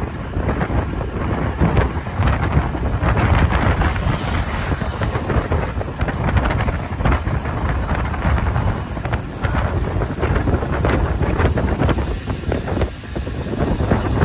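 Wind buffeting the microphone of a camera moving at cycling speed, a loud gusty rumble, with road noise beneath.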